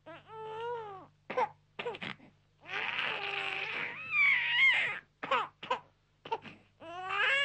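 Newborn babies crying in short, rising and falling wails with brief pauses between them. The longest and loudest cry comes about three to five seconds in.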